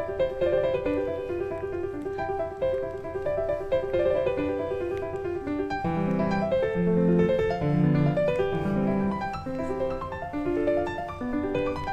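Background piano music, slow held notes with a lower melody coming in about halfway through, over a steady rushing noise.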